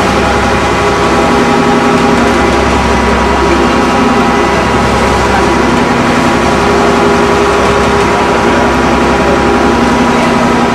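An engine running steadily at a constant speed, loud and close, with an even drone and a deep hum.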